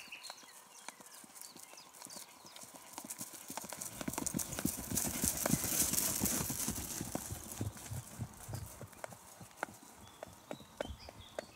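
Hoofbeats of two horses on a grass track, growing louder as they approach, passing close about six seconds in, then fading as they move away.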